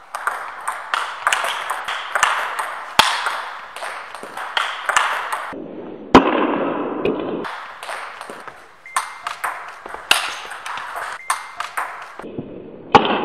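Table tennis ball clicking off paddles and the table in a fast rally, with an irregular run of sharp hits that echo in a large hall. The hardest hit comes about six seconds in.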